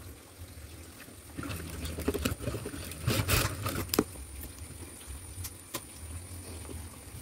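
Cloth rustling as hands shift and smooth a piece of fabric at a sewing machine, louder from about a second and a half in and loudest around three seconds, with a sharp click about four seconds in, over a steady low hum.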